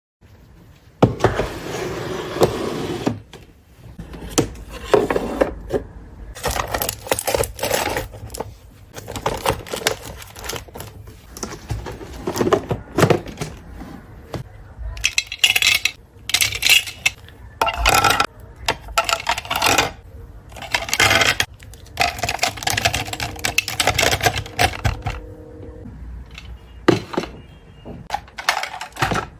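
Irregular knocks, clatters and scrapes of hard objects being handled and set down, with many sharp strikes one after another.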